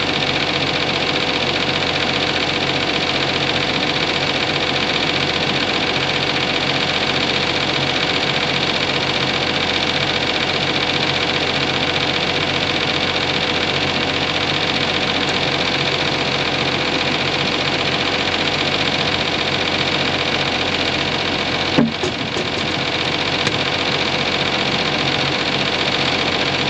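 Farm crop sprayer's engine running steadily, a constant mechanical drone with an even hum. One sharp click sounds late on.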